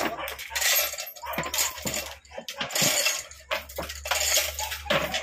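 Chain hoist's hand chain hauled hand over hand, its steel links rattling and clinking in repeated bursts about once a second.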